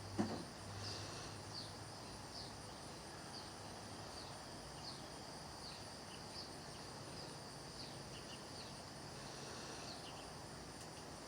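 Faint insects chirping: short high chirps repeating about once or twice a second over a steady high hiss, with one sharp click right at the start.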